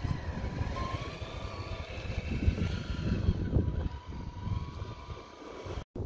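Traxxas TRX-4 radio-controlled crawler driving over sand, its electric motor and gearbox whining, rising and falling in pitch with the throttle, over a low rumbling noise. The sound drops out for an instant near the end.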